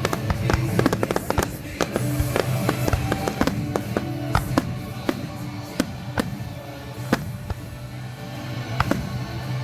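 Fireworks going off in a rapid, irregular string of sharp bangs and pops, with music playing underneath.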